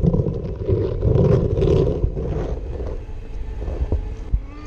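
Grease-trap sludge and water bubbling and churning inside a poly tank as a vacuum pump blows air in at the bottom. It comes as a low, uneven gurgling in surges.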